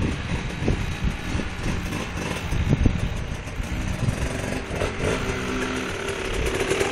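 Small dirt bike engines running at low speed, one getting a little louder as it rides close near the end.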